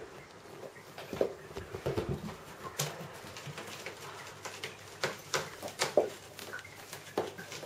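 A Bengal kitten's claws and paws scratching and tapping as it scrambles about on a carpeted cat tree and blanket. The sound is a run of irregular sharp scratches and taps, the loudest a little after one second in and around five to six seconds.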